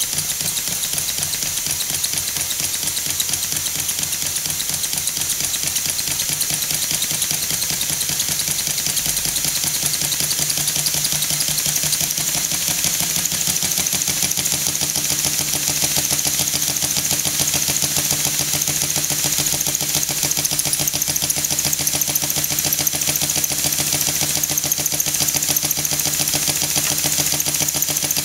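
Stuart S50 single-cylinder model mill engine running fast and steadily on compressed air, its exhaust beats too quick to count over a steady hiss of escaping air, with light mechanical clatter and a low steady hum underneath.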